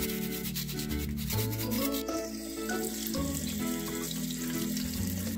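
Background music over a brush scrubbing the peel of a cara cara orange, a scratchy rubbing for the first couple of seconds, then tap water running over hands.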